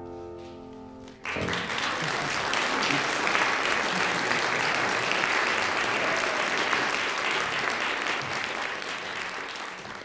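The music's final held chord rings briefly, then about a second in an audience breaks into steady applause, which begins to fade near the end.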